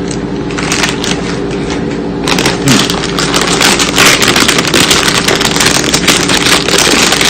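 A plastic potato-chip bag being handled and opened, crinkling in a dense crackle that turns heavy about two seconds in.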